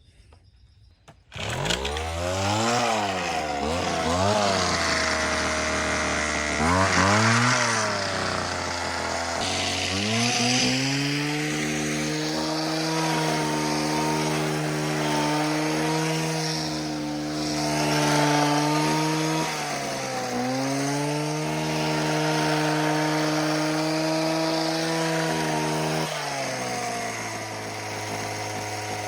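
Homelite HT17 hedge trimmer's two-stroke engine starting about a second in, revved up and down a couple of times, then running steadily at high speed with a brief dip. It drops to a lower speed near the end and dies away, now running well on new fuel lines.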